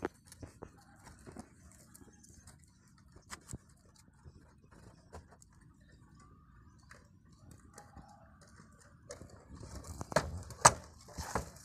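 Faint scrapes and small clicks of hands working a wooden concrete form board and its wire ties, then a few sharp knocks on the board about ten seconds in.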